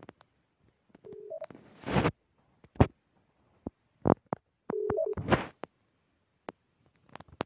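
Star Trek LCARS-style computer interface sound effects from a phone launcher theme as its on-screen buttons are tapped. Two short two-tone beeps, each stepping up from a lower to a higher tone, come about a second in and again near five seconds, among sharp chirps and clicks.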